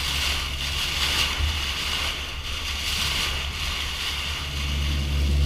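Water rushing and spraying off a motorboat's bow as it runs at speed, with the engine's low, steady drone underneath.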